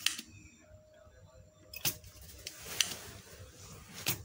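Handling noise: four sharp clicks, spaced a second or so apart, with rustling between them, as a multimeter probe and the phone recording it are moved over a circuit board.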